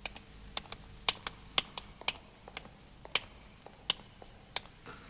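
High-heeled shoes clicking on a concrete floor, a sharp step about every half second with fainter clicks in between.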